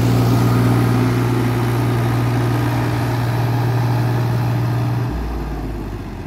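Diesel tractor engines running under load as a Mahindra 265 and the Farmtrac 60 T20 towing it haul a loaded sand trolley up out of a pit. The engines give a steady low hum. About five seconds in, that note stops, a lower hum takes over and the sound gets quieter.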